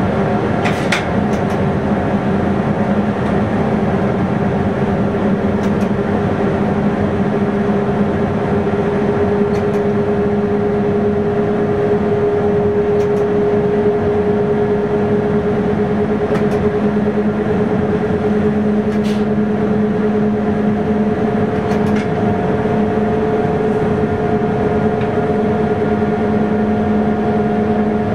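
Train running steadily, heard from inside the driver's cab: a constant engine hum that rises very slightly in pitch over a steady rumble, with occasional faint clicks every few seconds.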